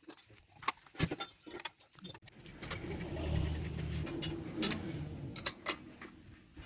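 Sharp metallic clinks and knocks of tools and parts being handled during engine work, two close together near the end, with a low hum swelling through the middle.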